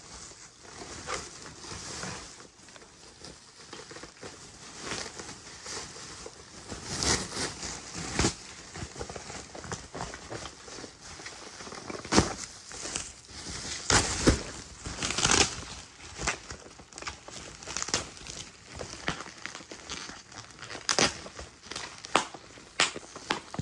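Plastic trash-bag wrapping being crinkled and torn open by hand, in a string of irregular rustling and crackling bursts, the loudest near the middle and again near the end.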